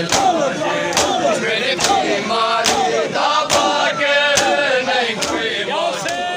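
Crowd of men chanting a mourning chant together while beating their chests in unison during Shia matam. The sharp slaps land in a steady rhythm a little under one second apart. A single held note begins near the end.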